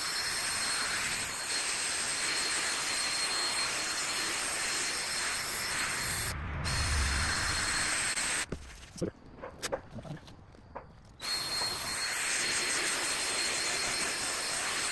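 Drill-driven sanding disc from a headlight restoration kit running against the plastic headlight lens, a steady whirr with a thin high whine. It stops for about three seconds a little past halfway, with a few clicks, then runs again.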